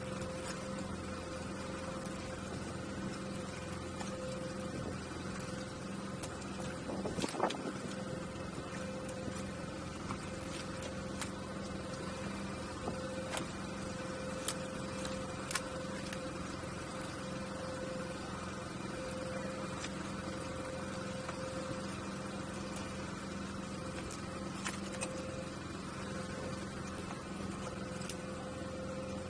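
Steady low hum of an idling outboard motor, with scattered short knocks and slaps as salmon are picked out of the gillnet into the aluminum skiff; the loudest knock comes about seven seconds in.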